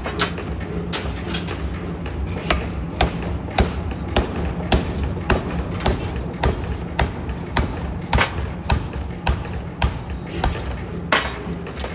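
Pneumatic forging power hammer striking metal in a steady rhythm, a little under two blows a second, over the low hum of the hammer running.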